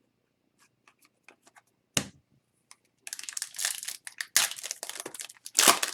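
A few light clicks and a sharp knock about two seconds in, then a foil hockey card pack wrapper crinkling as it is torn open, loudest near the end.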